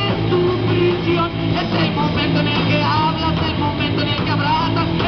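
Live rock band playing: amplified electric guitar, bass guitar and drum kit, steadily loud.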